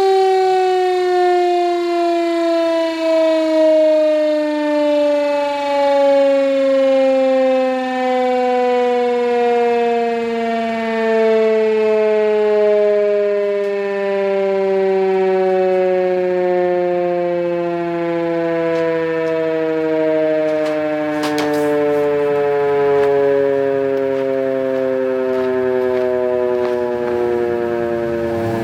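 Gryphon BS 2048 electric air-raid siren winding down, its loud tone falling slowly and steadily in pitch, with a few faint clicks about three-quarters of the way through.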